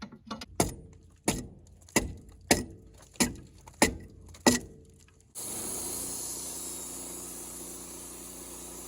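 An axe chopping at a log, about eight sharp strikes in a steady rhythm, knocking dirt and bark off before sawing. Just past five seconds in, a steady engine running noise cuts in abruptly.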